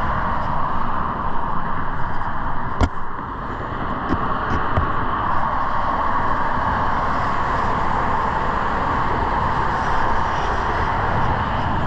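Steady, loud roar of passing highway traffic, with a single sharp click about three seconds in.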